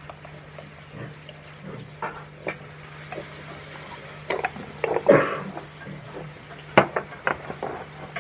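Glass spice jars and a metal spoon being handled on a counter beside a wooden mortar: scattered small clinks and taps, with a louder clatter about five seconds in and a few sharp ticks near seven seconds.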